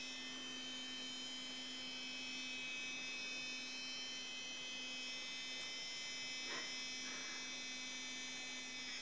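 Steady electrical hum with several high-pitched whining tones above it, cutting off abruptly at the end.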